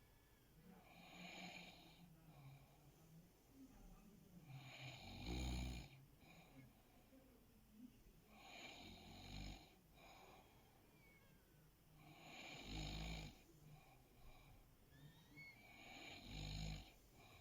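A sleeping person snoring faintly: five rough, airy snores about every four seconds, each lasting about a second.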